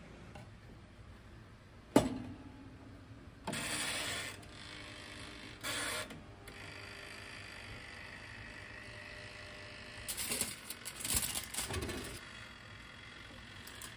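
Toaster oven being handled: a sharp clack with a short ring about two seconds in, then the mechanical timer dial wound with a ratcheting whir in two short turns, and later a burst of clattering and rustling at the oven.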